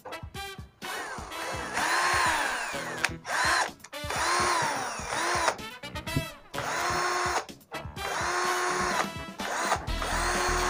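Mitsushi 12-volt cordless drill, powered from a wired-in 12-volt e-bike battery, run in about six short bursts on its trigger. Each burst is a motor whine that winds up, holds steady, then winds down.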